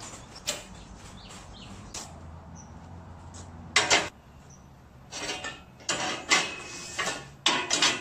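Metal parts of a steel welding table being handled: a few sharp knocks early on, a loud clank at about four seconds, then a run of clatters and scrapes as metal slides and knocks on the table's steel top.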